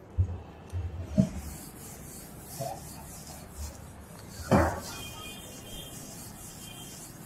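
Whiteboard duster rubbing marker off a whiteboard in repeated wiping strokes, with a short knock about four and a half seconds in.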